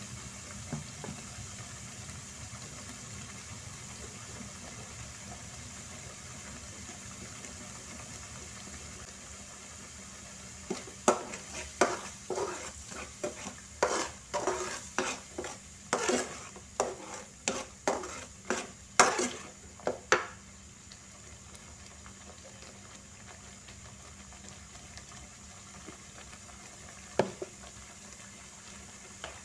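Chili sambal simmering and sizzling in a metal pan on a gas stove. Between about ten and twenty seconds in, a metal spatula stirs it: a quick run of scrapes and clinks against the pan, with one more knock near the end.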